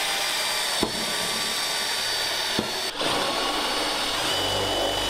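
Cordless drill with a step drill bit running steadily as it cuts a window-crank hole through a door panel; the motor's whine steps down to a lower pitch about four seconds in.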